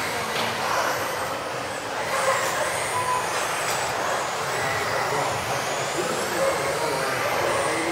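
Several electric RC off-road racing cars running together round a track: high motor whines rising and falling as they accelerate and brake, over a steady rush of tyre and drivetrain noise.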